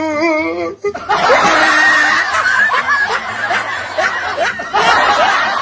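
A short wavering, quavering voice-like sound, then from about a second in a dense burst of many people laughing and chuckling at once, like a laugh track.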